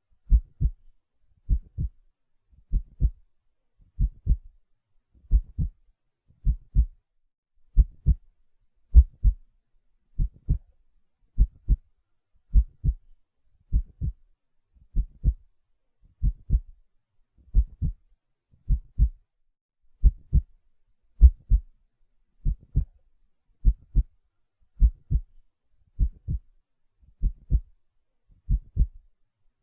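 Heartbeat sound: a steady lub-dub double thump, low and dull, repeating evenly at about one beat every 1.2 seconds.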